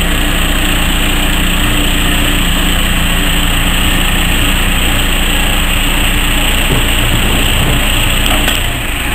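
Engine of a 15 in gauge miniature-railway diesel locomotive idling steadily while the locomotive sits on a turntable.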